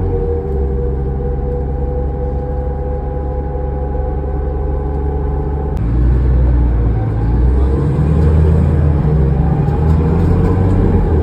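2005 New Flyer D40LF diesel transit bus heard from inside while driving: a heavy low engine rumble with a steady howling drivetrain whine. About six seconds in, the sound changes abruptly, then grows louder as the whine rises in pitch with the bus accelerating.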